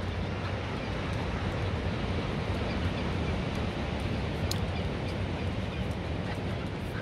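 Waves breaking on a beach, a steady wash of surf, with wind rumbling on the microphone.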